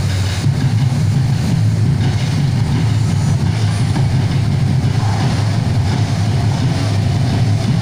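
Steady low rumble with a fainter hiss above it, like city traffic noise.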